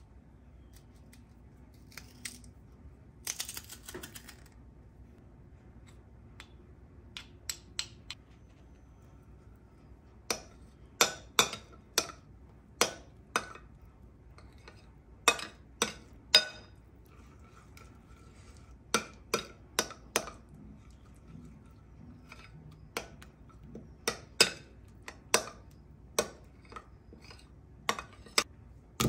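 Metal spoon stirring a butter, garlic and herb mixture in a ceramic bowl, clinking sharply against the bowl many times at an uneven pace. Near the start, quieter squeezing and scraping from a metal garlic press.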